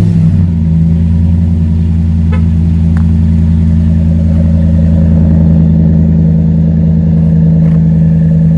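Pickup truck engine idling steadily through a newly installed dual Flowmaster exhaust that still has its mufflers, heard at the tailpipe tip and settling from its start-up flare in the first half second.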